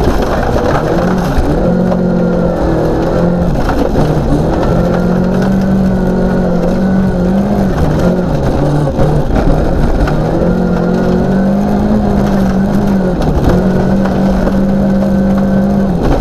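Volvo 940 rally car's engine running hard, heard inside the cabin over loud gravel and road noise. The revs hold steady, then dip briefly and climb back several times as the driver lifts off or changes gear.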